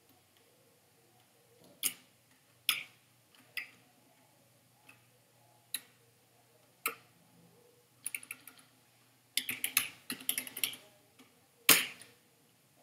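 Computer keyboard keystrokes: single key presses spaced about a second apart, then two quick runs of typing, with one loud keystroke near the end.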